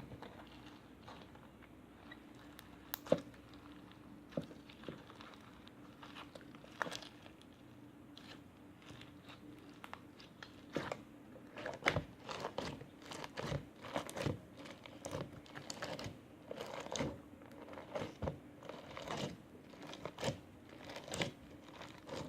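Foam-bead slime being squeezed and kneaded by hand, crunching and crackling as the beads press and pop. A few scattered crackles at first, then a run of crunches about twice a second through the second half.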